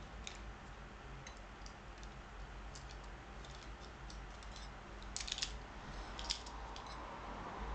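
Computer keyboard typing: scattered light key clicks, with a quick run of them about five seconds in and one sharper click just after, over a low steady hum.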